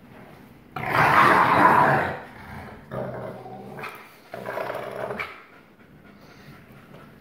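Wolfdogs growling in rough play, a dominance display of father over son, in three bouts: a long loud one about a second in, then two shorter ones around three and four and a half seconds in.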